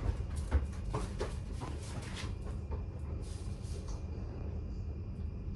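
Two small dogs, a Maltese and a Havanese, jumping off a bed and chasing a thrown ball across a tiled floor: a quick run of paw clicks and thumps over the first couple of seconds, then a brief scuffle about three and a half seconds in.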